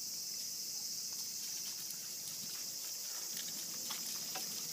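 Steady high-pitched drone of insects, with light scattered clicks of puppies' paws on gravel from about a second and a half in.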